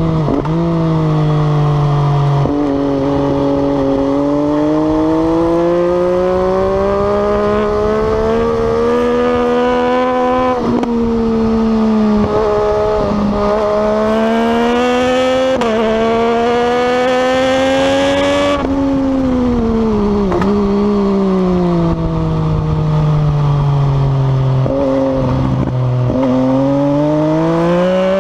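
MV Agusta Dragster 800 motorcycle's inline three-cylinder engine under hard acceleration, its pitch climbing through the revs with short dips at each upshift. Past the middle it drops away as the bike slows and changes down, then climbs again near the end.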